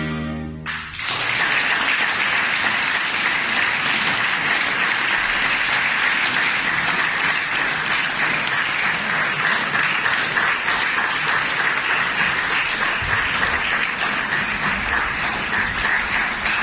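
The last chord of a choir song cuts off under a second in, and the audience breaks into steady, sustained applause.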